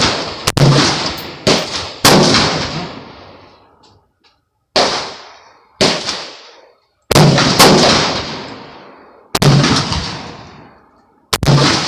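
A 5.56 rifle firing about nine shots at irregular intervals. Each crack is followed by a long echoing decay.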